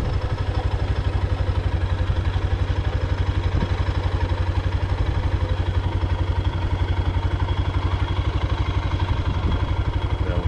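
A motor vehicle's engine running with a steady low rumble and a fast, even pulsing.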